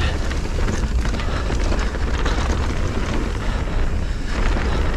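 Mountain bike ridden fast down a dirt trail: wind buffeting the camera microphone with a heavy rumble, over tyre noise and a steady clatter of small knocks from the bike.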